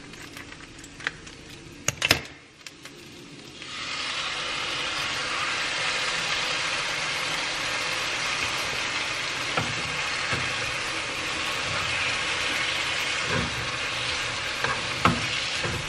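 Diced vegan chicken frying in a pan on a gas burner: a few small clicks at first, then about four seconds in a steady sizzle starts as sauce from a packet hits the hot pan, with a few taps of a metal spatula against the pan near the end.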